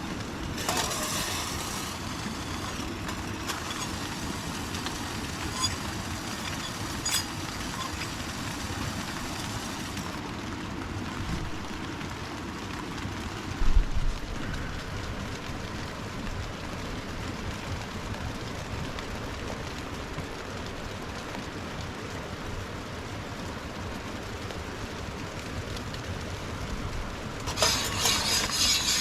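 Steady rushing of the nearby creek's running water, with a few faint clicks, one low thump about 14 seconds in, and a louder crackly rustling that starts near the end.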